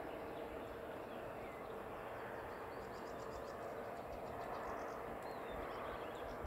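Faint riverside ambience: a steady low hum and hiss, with small birds chirping and trilling faintly from about three seconds in.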